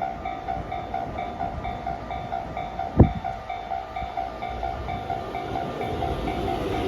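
Japanese railway level-crossing warning bell ringing, its electronic tone pulsing about three times a second, with one sharp thump about three seconds in. The rumble of the approaching train grows louder near the end.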